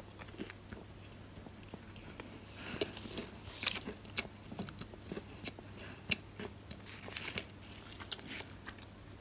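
A sticky, chewy baked brownie edge being pulled apart by hand close to the microphone: faint, scattered crackles and soft tearing, loudest about three to four seconds in.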